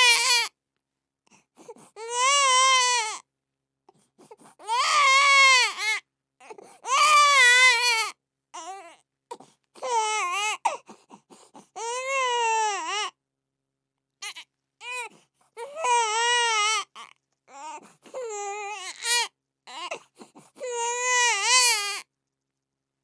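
A baby crying hard: a run of wails about a second long each, each rising and falling in pitch, with short gasping breaths in the gaps between them.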